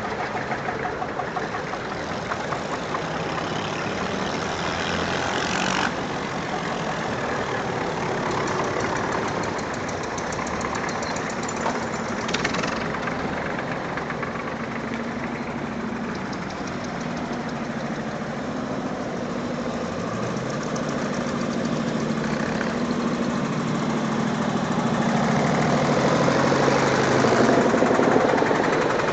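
Old tractor engines: one tractor running as it drives off and fades, then another's engine growing steadily louder as it approaches over the last ten seconds or so.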